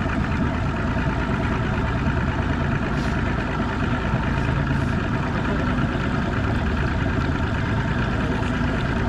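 An engine running steadily at an even speed, a constant low hum with no change in pitch.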